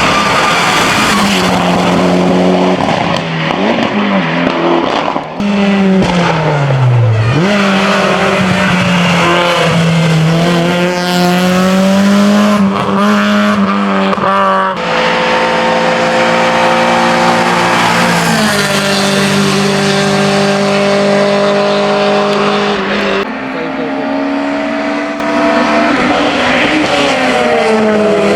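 Race car engine at full effort on a hillclimb. It drops sharply in pitch as it slows for a bend, then revs back up. Later come several sudden pitch steps from gear changes as it accelerates away.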